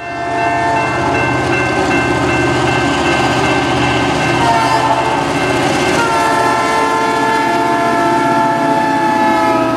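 HO-scale EMD GP38-2 model diesel locomotive's sound playing a multi-tone horn in long blasts, its pitch shifting about four and a half and six seconds in, over the steady rumble of the diesel engine sound and the running of the hopper train on the track.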